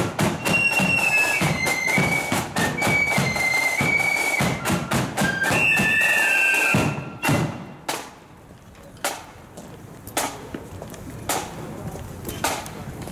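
Marching flute band playing a tune on flutes over snare and bass drums. The tune ends about seven seconds in, and then a lone drum beat keeps the marching step, about one beat a second.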